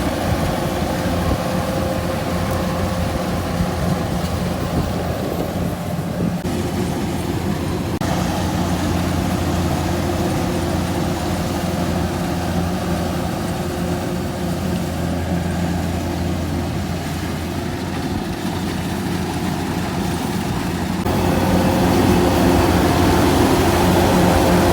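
Farm machine's engine running steadily, its note shifting a little partway through and growing louder over the last few seconds.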